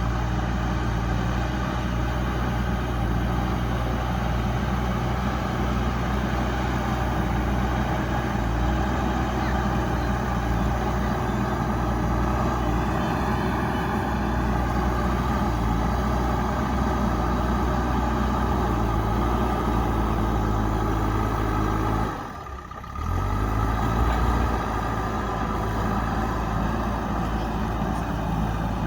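JCB backhoe loader's diesel engine running steadily under work, with a deep hum. It cuts out for under a second about two-thirds of the way through, then resumes.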